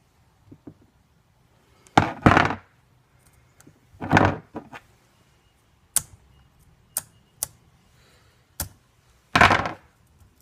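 Handling sounds from a chainsaw's bar and chain as the chain tension is tightened: three short noisy bursts of about half a second each, with several sharp clicks between them.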